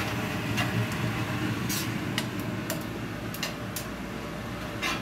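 Metal cooking utensils clicking and scraping against a frying pan as stir-fried noodles are tossed and mixed: a handful of sharp, irregular clicks over a steady background hum.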